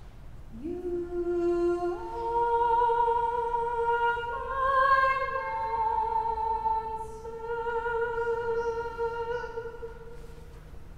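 Small choir singing long held notes, voices entering one after another to stack into a slow chord that fades away near the end.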